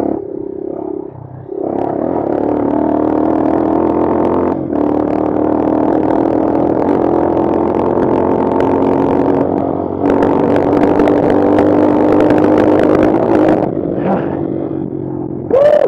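Bashan Brozz 250 dual-sport motorcycle engine running under load on a dirt trail. The throttle backs off briefly about a second in, then the engine pulls steadily, with steps in engine pitch partway through, over the clatter of the bike on rough ground. Near the end come a few short, sharp bursts of throttle.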